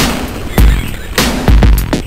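Loud music with heavy, evenly spaced drum hits and deep bass.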